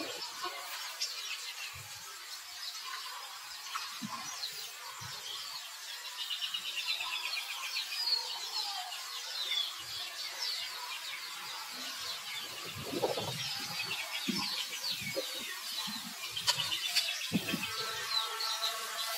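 Birds chirping and singing over and over in the background, with scattered soft low thumps, the strongest about two-thirds of the way through.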